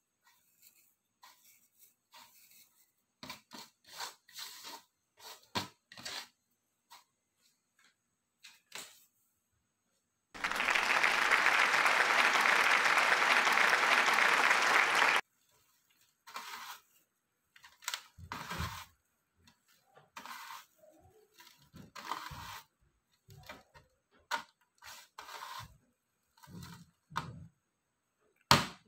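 Dried basil flakes crackle and scrape on a metal baking tray, with a small glass spice jar clinking and tapping on the tray as it is filled by hand. About ten seconds in, a loud steady hiss starts suddenly and stops just as suddenly about five seconds later.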